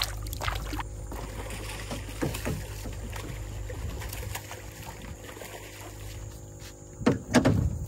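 Hooked redfish thrashing and splashing at the surface in the first second, then a steady low wash of water and wind around a small boat, with a loud low thump about seven seconds in.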